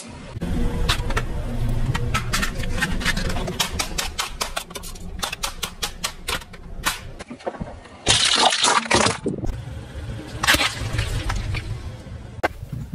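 A car tyre rolling over and crushing plastic toys and packets: a quick run of sharp cracks and crunches over a low engine rumble, with a louder, hissing crunch about eight seconds in and more cracking near the end.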